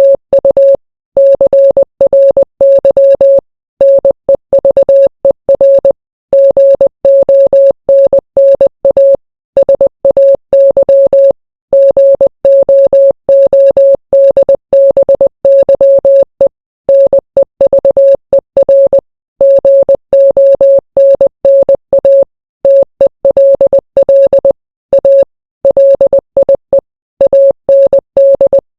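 Morse code sent as a single steady beep tone keyed on and off in quick dots and dashes, with short breaks between letters and longer pauses every few seconds between words.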